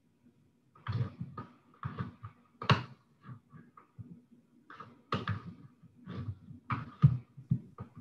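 Irregular soft taps and knocks, about two a second, starting about a second in, heard through a video-call microphone.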